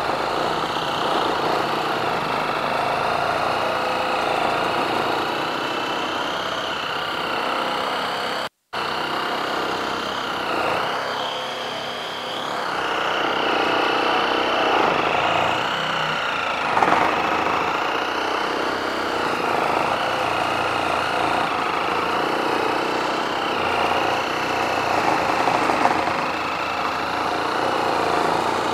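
Kobalt 24V brushless one-handed reciprocating saw running steadily, its blade sawing through a thick wooden block in a long, slow cut. The motor's whine wavers up and down as the blade loads and frees in the wood. The sound cuts out for a split second about eight and a half seconds in.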